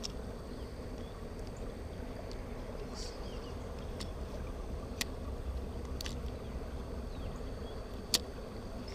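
Quiet pondside background: a low steady rumble with a few faint sharp ticks, the loudest about eight seconds in.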